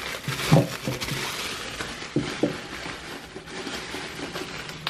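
Handling noise as black metal hairpin legs are set down on a wooden shelf board: a few light knocks of metal on wood over a rustling background.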